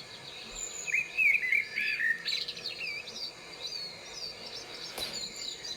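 Several wild birds calling and singing: short whistled chirps and upslurred notes, loudest about one to two seconds in, with a fast repeated trill near the end.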